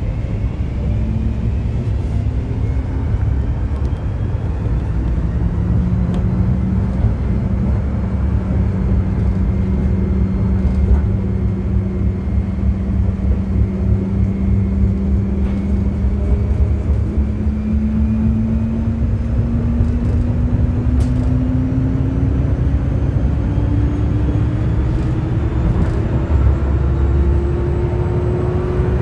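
Electric Forchbahn commuter railcar heard from the driver's cab: a constant rumble of wheels on track, with a traction-motor whine. The whine holds one pitch, then rises steadily over the second half as the train picks up speed. A few faint clicks sound over the rumble.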